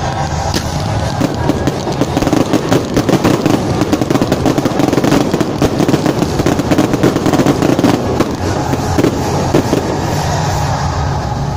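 Fireworks launching from the ground and bursting overhead in a rapid volley: a dense run of pops and crackles from about a second in, thinning out near the end.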